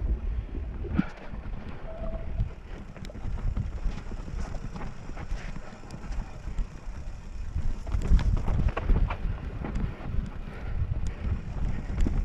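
Wind buffeting a helmet-mounted camera on a fast mountain-bike descent, with the tyres running over dirt and rock and scattered clicks and rattles from the bike. It gets louder about two-thirds of the way through.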